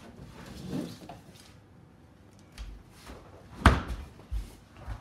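Fridge door shutting with one loud sharp knock a little past halfway, among a few softer low thumps of handling and steps.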